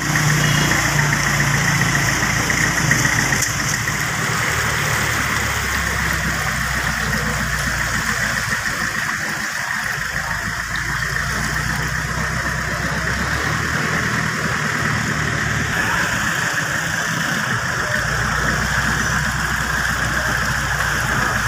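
A motor vehicle engine running steadily, with a constant hiss of noise over it; the low hum shifts slightly about four seconds in.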